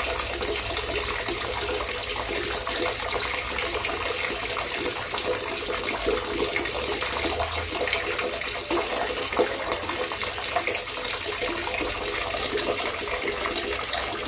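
Running water gurgling and trickling steadily, a continuous splashing with many small bubbling crackles.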